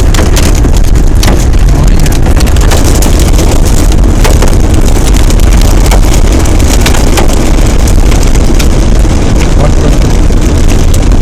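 Hailstones hitting a car in a dense, unbroken patter of sharp clicks over the loud low rumble of wind and the moving car.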